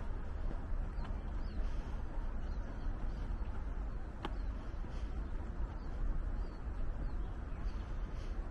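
Outdoor street ambience: a steady wash of low background noise with faint, short, high bird chirps now and then, and a single sharp click about four seconds in.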